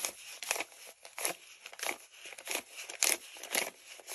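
Paper dollar bills being counted by hand, each bill flicked off the stack with a short crisp rustle, about three every two seconds.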